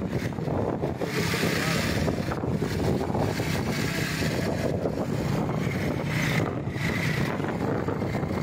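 A vehicle engine running steadily while travelling along a road, with wind rushing and gusting over the microphone.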